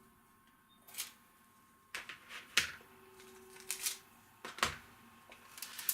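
Thin packaging adhesive tape being pulled off its roll and handled: a handful of short, sharp crackles and clicks at irregular intervals.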